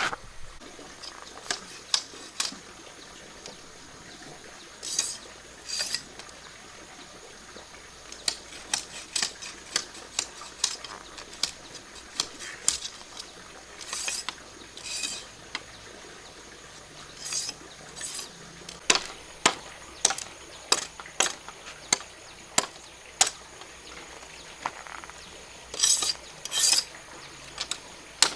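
Irregular light clicks and knocks of objects being handled, with a few short swishing rustles in between.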